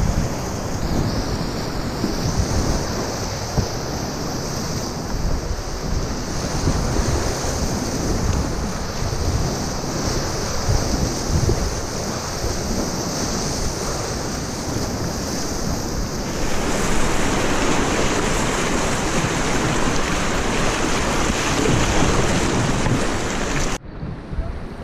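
Whitewater rapids rushing around an open canoe running through them, with wind buffeting the microphone. The rush grows louder about two-thirds of the way through, then drops suddenly to quieter moving water near the end.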